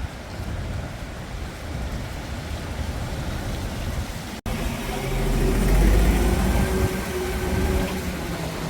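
Storm wind rumbling across the microphone over street traffic. After an abrupt cut about four seconds in, a heavy vehicle's engine hum joins it and the rumble grows louder.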